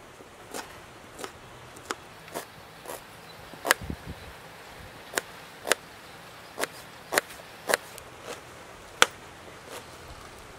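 A kitchen knife chopping onion on a wooden board. The blade strikes the wood in sharp, uneven knocks, about one to two a second.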